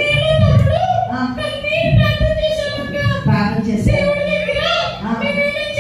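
Children's voices singing a song, holding long notes.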